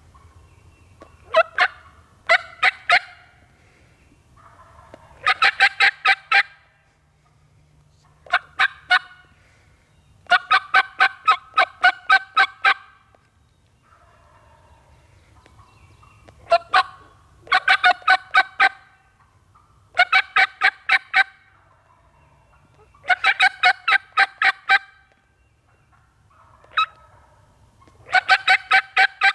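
Wild turkey calling loudly: about a dozen series of rapid, evenly spaced notes, each series a second or two long, with short pauses between them.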